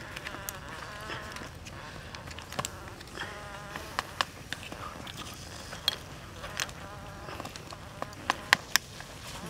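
A flying insect buzzing close by in two spells, its pitch wavering, over a steady hiss. Scattered sharp clicks and ticks break in, the loudest three close together near the end.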